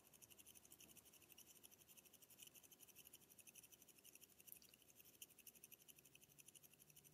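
Near silence: faint room tone with a faint, fast, steady high-pitched ticking.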